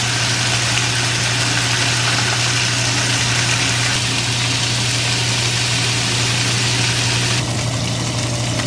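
Beef steaks searing in a frying pan, with butter going in partway through: a steady sizzle over a constant low hum.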